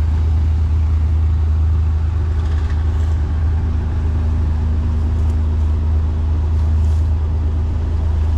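Side-by-side utility vehicle's engine running while driving along a dirt track, a loud, steady low drone with rattling ride noise over it.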